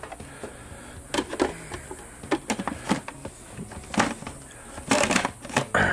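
Hard plastic clicks and knocks as a food processor's lid and feed-tube pusher are fitted and locked onto its bowl: a dozen or so sharp taps at uneven intervals, bunched together near the end.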